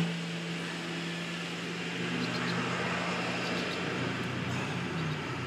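Steady low machine hum with a few overtones, fading and dropping to a lower pitch about two seconds in.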